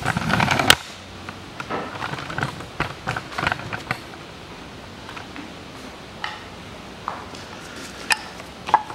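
A brief rustling scrape at the start, then scattered light clicks and knocks of hand tools and small metal parts being handled.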